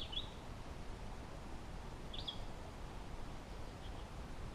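A small bird chirping, giving short high notes, often in quick pairs, three times, over a faint steady outdoor background noise.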